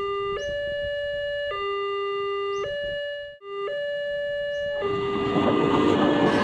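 Railroad crossing warning signal sounding as an electronic two-tone chime, a higher and a lower tone alternating about once a second, with a brief dropout midway. Near the end the rumble of an approaching train rises under it.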